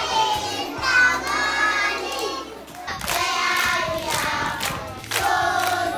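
A group of young children singing together in chorus. There is hand clapping in the second half.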